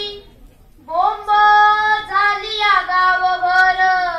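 A boy singing a slow melody into a microphone, holding long notes. After a short pause he comes in again about a second in, and the last note slides downward near the end.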